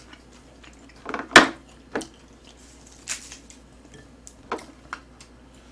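Close-miked handling of a leaf wrap and table things: scattered small clicks and light rustles. One sharp click about a second and a half in is the loudest.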